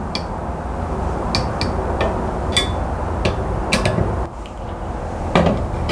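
About seven light clicks and taps as a knife and the Hapstone RS sharpener's clamp are handled. The strongest comes near the end, over a steady low background rumble.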